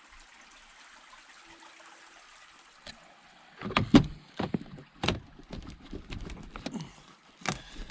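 Faint hiss, then from about four seconds in a run of irregular knocks and clunks on the truck, the loudest near the start of the run; the part being worked is frozen.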